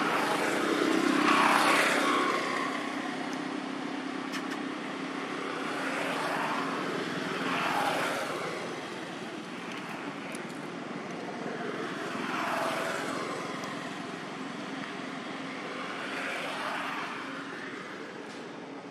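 Motor vehicles passing one after another, each swelling up and fading away, several times over, with the strongest pass near the start.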